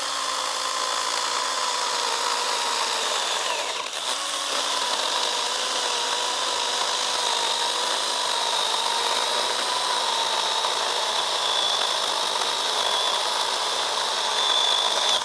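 Stihl GTA 26 battery-powered mini chainsaw cutting steadily through a thick branch about 100 mm across, its electric motor whining under load over the rasp of the chain in the wood, with a brief dip about four seconds in. It stops right at the end as the cut goes through.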